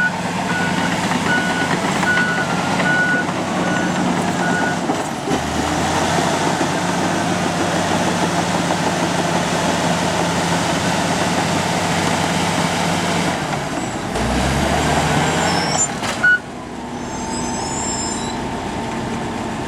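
Komatsu D85 bulldozer's diesel engine running under load, with a reversing alarm beeping over it for the first few seconds. About 16 seconds in, a sharp click is followed by quieter, steady running.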